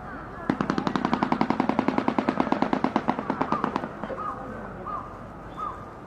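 Shoebill bill-clattering: the upper and lower mandibles clapped together in a fast, hollow rattle like a machine gun, about ten claps a second, lasting about three seconds.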